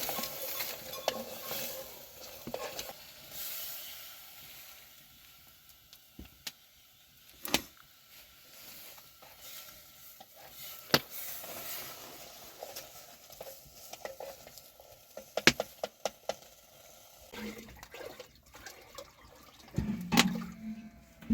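Cooking at a pot: scattered sharp clicks and knocks of a utensil against the vessel over a faint sizzling hiss. A brief low-pitched sound near the end.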